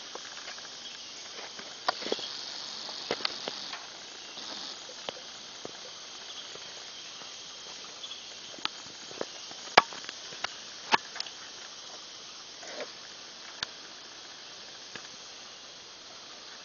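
Pen of day-old Yorkshire piglets: scattered sharp clicks and taps from the piglets moving about, over a steady high hiss, with two louder clicks near the middle.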